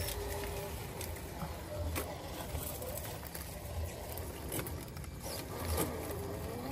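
A 1/10-scale RC rock crawler (SCX10-based, brushless motor and three-gear transmission) working over rocks: its motor and gears whine, rising and falling with the throttle, over scattered clicks of rocks and tyres. Low rumbling comes and goes underneath.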